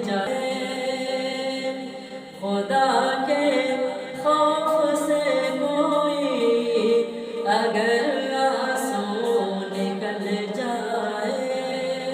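A cappella devotional singing: a voice holds long, wordless melodic lines that glide up and down over a steady low hum, with no instruments.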